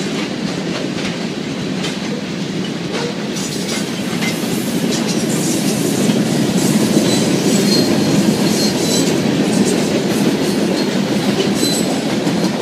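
Freight cars (tank cars, then steel coil cars) rolling past at speed: a steady rumble of steel wheels on rail with a rhythm of clicks over the rail joints, growing a little louder midway.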